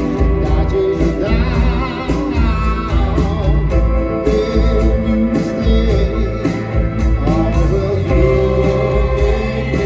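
Rock band playing live, with a singer's voice over a full band and a steady beat.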